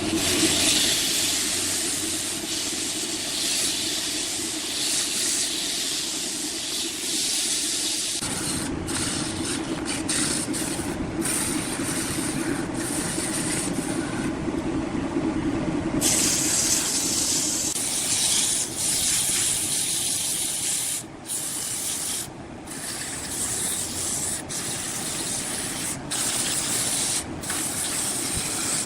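Large wood lathe running while a tool cuts the spinning wood: a steady rushing hiss over a low hum, changing abruptly twice where the shots change.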